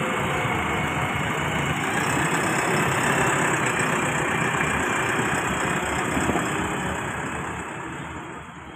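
JCB 3DX Eco Xpert backhoe loader's four-cylinder diesel engine running steadily at close range, fading out near the end.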